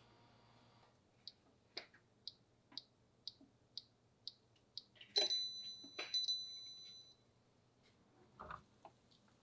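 BALMUDA steam oven toaster's timer ticking evenly, about twice a second, then its bell ringing once and dying away over about two seconds as the time runs out. A soft knock follows near the end.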